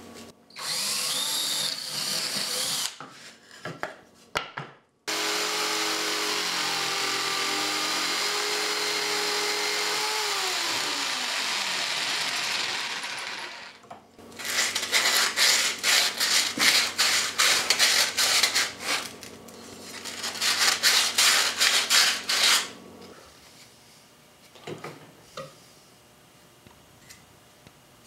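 A power drill bores a starter hole through plywood and winds down. About halfway in, a jigsaw cuts in rapid pulses around a circle to make a round entrance hole, then stops a few seconds before the end.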